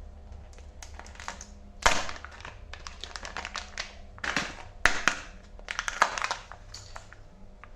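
Kinder Joy egg wrapper crinkling and tearing as it is opened, in a string of crackly bursts, the loudest about two, five and six seconds in.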